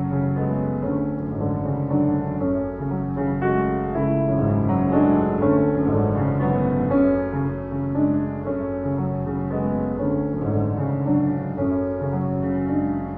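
Solo grand piano playing a continuous passage, notes struck one after another and left ringing into each other.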